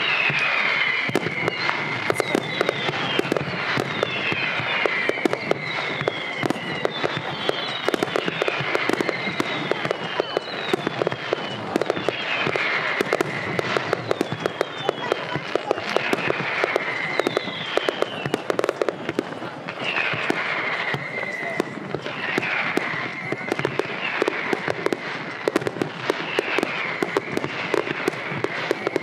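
A fireworks display going off in a rapid stream of bangs and crackling, with many whistles falling in pitch, one after another, throughout.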